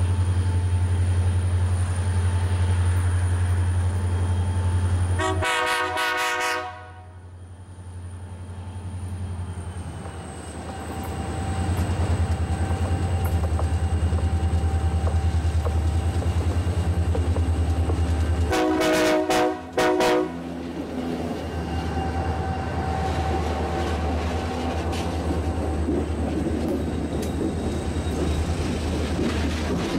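Diesel freight locomotive horn sounding twice: one blast of about a second and a half around five to six seconds in, then a quick series of short blasts around nineteen to twenty seconds in. A steady low engine hum runs underneath.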